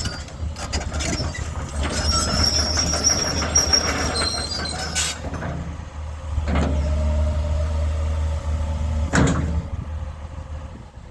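Doosan 225 hydraulic excavator running: a steady diesel engine drone with high squeals through the first half and two sharp clanks later on, the engine quietening near the end.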